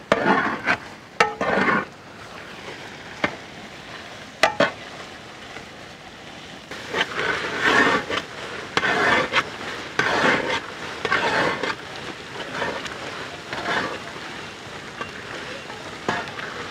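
A long metal ladle stirring thick carrot halwa of grated carrot, milk and sugar in a large cooking pot, with a few sharp knocks in the first few seconds, then scraping, swishing strokes about once a second through the second half. The mixture is being stirred constantly so the sugar dissolves in the milk and it does not stick to the bottom of the pot.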